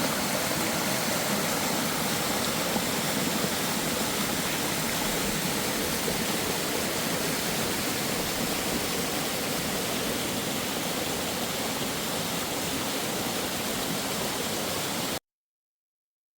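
Waterfall splashing into a rock grotto: a steady rush of falling water that cuts off suddenly near the end.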